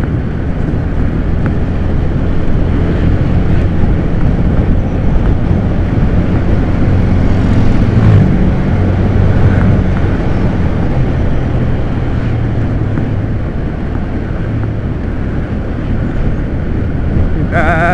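Motorcycle engine running under way over a steady rush of noise; the engine gets louder and its note rises a little about eight seconds in, then eases back.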